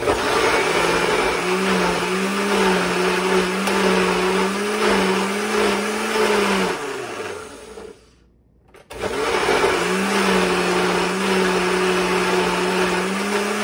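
Countertop blender motor running on garlic cloves and olive oil with a steady hum, switched off about seven seconds in so that it winds down, then started again about a second later. The garlic is proving hard to blend smoothly.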